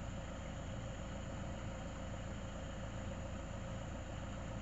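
XCMG XE135B excavator's diesel engine running steadily at low revs, an even low hum with no changes.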